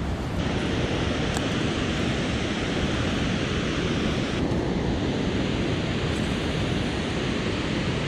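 Steady rushing roar of water pouring over a dam spillway, mixed with wind buffeting the microphone.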